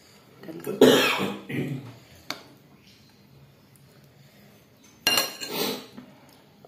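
Steel spoon scraping and clinking against a plate while scooping food, in two short bouts: about a second in and again about five seconds in, with a single click in between.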